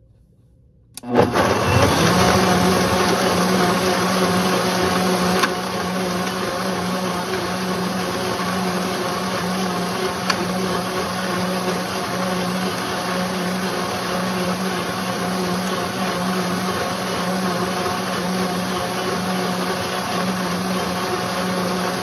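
Vitamix blender motor switching on about a second in and running steadily, churning a thick green smoothie, with a constant motor hum under the rush of the blades. It gets a little quieter about five seconds in.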